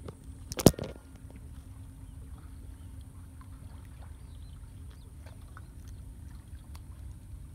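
A couple of sharp knocks from the camera being handled and set down about half a second in, then a steady low rumble of wind and sea by the water.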